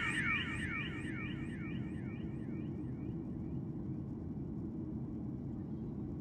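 The tail of the ending music: a falling electronic sweep that repeats about four times a second and fades away over the first few seconds. Under it runs the steady low drone of an airliner cabin in flight.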